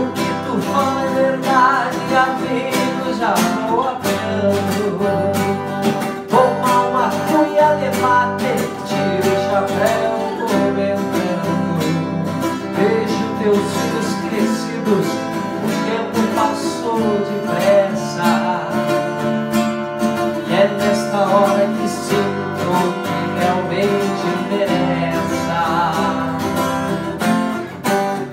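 Two acoustic guitars strummed and picked together, with male voices singing a Brazilian regional folk song in Portuguese.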